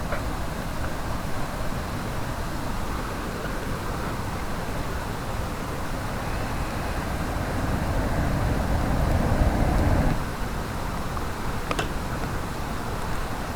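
Steady rushing of a mountain stream, with a swell of low rumble about eight to ten seconds in and a single sharp click near the end.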